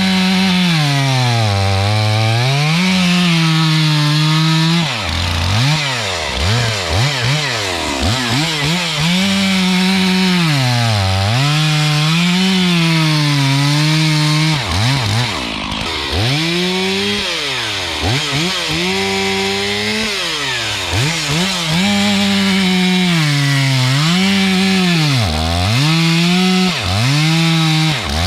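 Stihl MS 461 two-stroke chainsaw cutting firewood at high revs. Its pitch sags as the chain bites into the wood and climbs again between bites, with several quick throttle blips between cuts.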